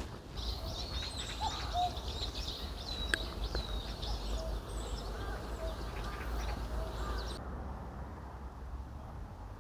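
Small birds chirping and twittering over a steady low outdoor rumble, with a lower, short call repeating about once or twice a second. The chirping cuts off abruptly near the end.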